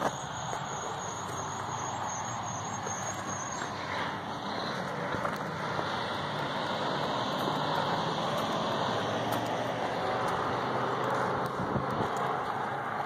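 Steady rush of road traffic, growing slightly louder toward the end, with a faint high whine over the first few seconds.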